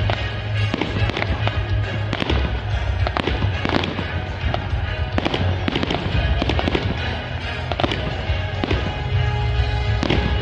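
Fireworks display: aerial shells bursting in a run of repeated bangs and crackles, with music playing underneath.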